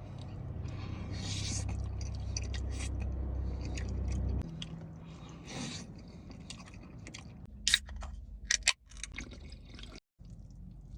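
Close-up chewing and crunching on chicken wings, with short wet clicks and smacks. A steady low hum sits under the first four seconds and stops. A few sharp crackles come close together near the eight-second mark.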